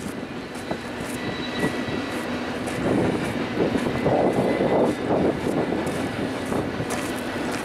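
BNSF double-stack container freight train rolling past, a steady rumble from the cars on the rails. Wind gusts buffet the microphone, swelling about three to five seconds in.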